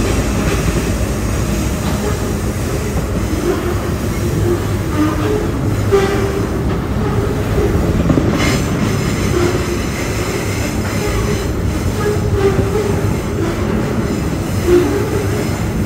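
Loaded double-stack container freight train rolling along: a steady rumble of wheels on rail, with short squeaks and a few sharp metallic clanks.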